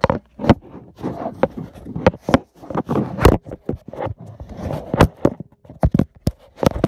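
Handling noise from a handheld camera being fumbled with: fingers rubbing and bumping against the device close to its microphone, giving a string of irregular knocks and scrapes.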